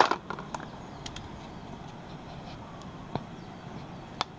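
Scattered light clicks and taps from handling a handheld TPMS scan tool and pressing its buttons, a small cluster at the start and single clicks about a second, three seconds and four seconds in, over a steady low hiss.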